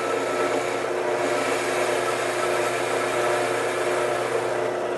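Drill press running with a Forstner bit boring into a block of wood: a steady motor hum under the rasping of the cut.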